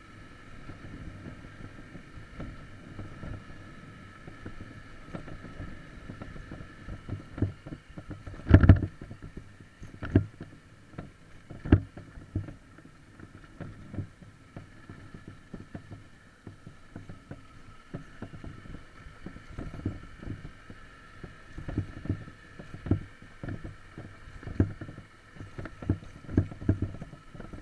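Dirt bike ridden over a rocky gravel track: a steady, muffled engine drone with many knocks and thuds from the wheels and suspension hitting stones and bumps, the loudest a little before nine seconds in and another near twelve seconds.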